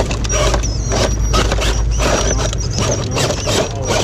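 Electric RC scale crawler driving against rock: motor and gears whirring while its tyres scrabble and the chassis scrapes and knocks irregularly on the stone as it tips onto its side in the crevice.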